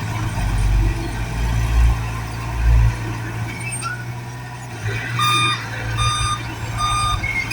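A vehicle's reversing alarm starts about five seconds in, a steady beep repeating a little more than once a second, over a low engine rumble.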